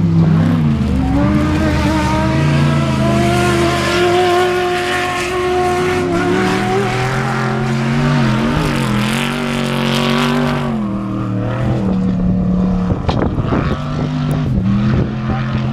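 Off-road desert race truck engine running hard, its pitch rising and falling repeatedly as the throttle and gears change, with a rushing tyre-and-gravel noise that builds and then drops away about eleven seconds in, leaving a steadier engine note.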